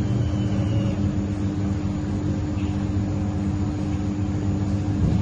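Sugarcane juice vending machine's motor running with a steady, even hum.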